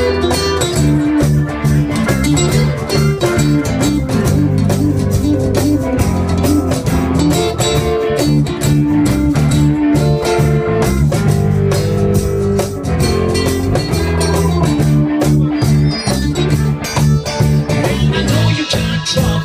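Live rock band playing: acoustic guitar and drum kit over a low bass line, with a steady beat.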